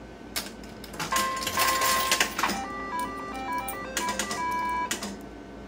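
IGT S+ slot machine playing a game: a click as the button is pressed, then a string of electronic beeps stepping up and down in pitch while the reels spin, with a few sharp clicks in among them as the reels run and stop.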